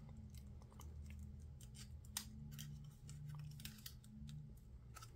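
Utility knife blade cutting and picking at layered paper, freeing cut-out pieces: faint, scattered small clicks and scratches. A faint steady low hum runs underneath.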